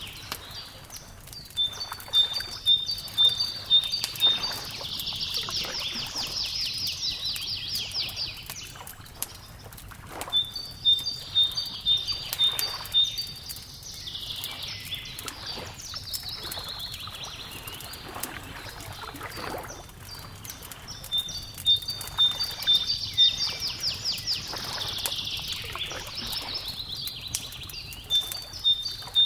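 Fire crackling throughout, with a songbird singing the same phrase about every ten seconds: a run of clear, evenly spaced alternating notes, then a quick warbling trill. A soft low wash lies underneath.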